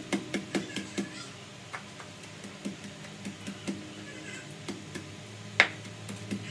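Wooden pestle pounding cassava leaves in a mortar: repeated dull thumps, close together in the first second and then more spaced, with one sharp loud knock about five and a half seconds in.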